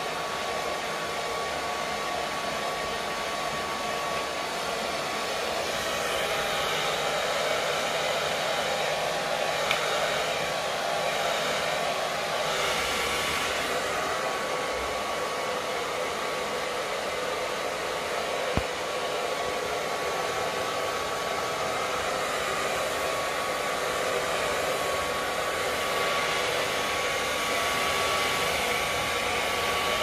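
Hair dryer running steadily: an even rushing blow of air with a thin, steady whine in it, swelling gently now and then.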